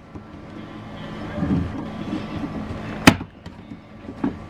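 Plastic door trim panel being pried off its retaining clips with a screwdriver: rubbing and scraping, then one sharp snap about three seconds in. A steady low hum runs underneath.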